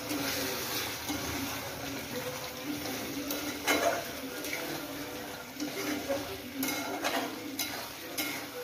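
A spoon stirring thick chicken gravy in a pan on the stove, scraping through it and knocking against the pan's sides, over a low sizzle from the hot pan. The loudest knock comes about three and a half seconds in, and several more follow near the end.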